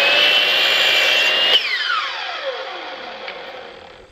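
DeWalt 12-inch compound miter saw with a Diablo 44-tooth carbide blade, running at full speed as it cuts through a painted trim board. About a second and a half in the trigger is released, and the motor's whine falls steadily as the blade coasts down.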